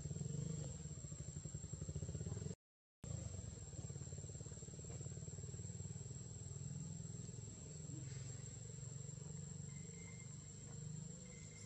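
A steady low motor-like hum with fine, even pulsing, under a steady high thin insect whine. The sound cuts out completely for about half a second a little over two seconds in.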